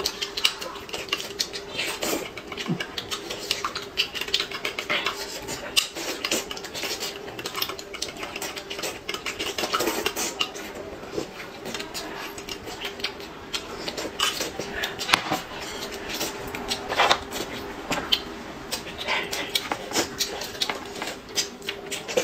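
A metal spoon clinking and scraping against a glass mug as a drink is stirred, with many small taps and clicks, alongside roast chicken being torn apart by hand and eaten. A faint steady hum runs underneath.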